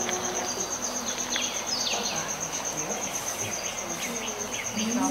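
A cricket chirping steadily: a high, evenly pulsed trill that repeats several times a second without a break.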